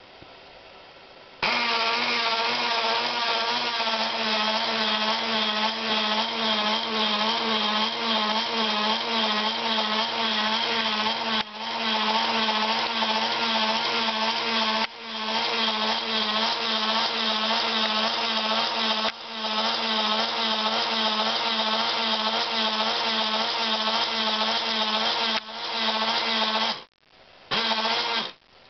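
Small electric drive motor and gearing of a Faller model wall-of-death ride running, a steady whine that wavers quickly in pitch. It starts about a second and a half in and breaks off briefly several times, with a short dropout near the end.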